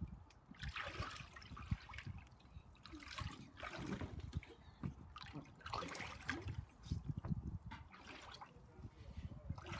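Shallow water in an inflatable paddling pool splashing and sloshing in irregular surges as a child wades through it.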